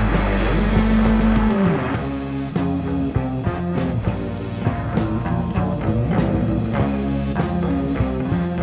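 Live psychedelic rock band with electric guitar. A held chord rings with one note bending down, and about two seconds in the drums come back with a steady, driving beat under the guitars.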